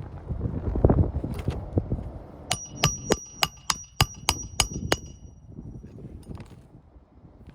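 About nine quick hammer blows on metal, roughly three a second, each ringing, with the ring lingering briefly after the last. Rustling handling noise fills the rest.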